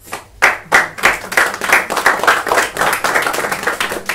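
Audience applauding, breaking out all at once after a poem reading, many hands clapping quickly and unevenly.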